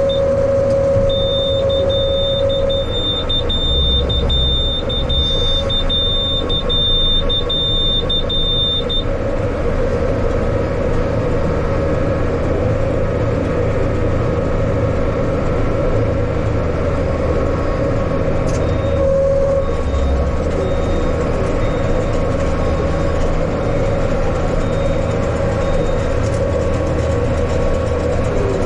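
Yanmar tractor's diesel engine running steadily, with a high, steady beep sounding from about a second in until about nine seconds in.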